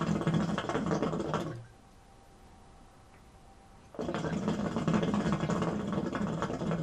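Hookah water bubbling in the base during two draws through the hose. The first draw fades out about a second and a half in, and the second starts about four seconds in and runs on to the end. The pull is nice and easy.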